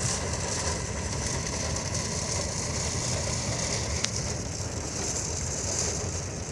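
Heavy rain pouring down steadily: a dense hiss with a low rumble underneath, and a single sharp tick about four seconds in.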